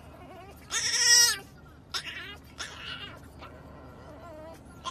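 French bulldog puppy whining: a loud, wavering high call about a second in, a few shorter ones around two to three seconds, and another starting near the end.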